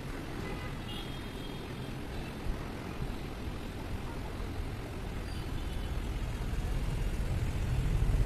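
Steady low rumble of background road traffic, swelling louder toward the end, with a couple of faint short high tones.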